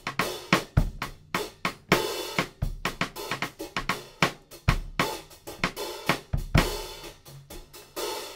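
Drum kit played live as a busy groove: sharp snare hits and cymbal crashes, several a second, over low kick-drum thumps.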